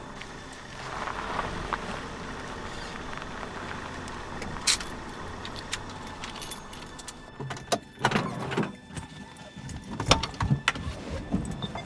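A car running and rolling slowly through an underground car park, its engine and tyre noise echoing off the concrete. It then settles, and near the end comes a run of sharp clicks and knocks.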